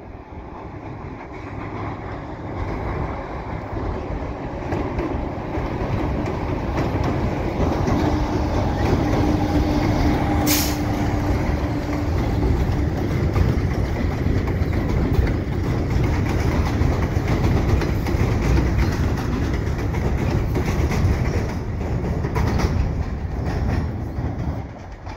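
EXO commuter train, a Bombardier ALP-45DP locomotive running on its diesel engines and hauling bi-level coaches, passing over a steel railway bridge with a heavy rumble. It grows louder over the first several seconds and drops away at the very end. A steady tone is held for a few seconds near the middle, and there is one sharp click about ten seconds in.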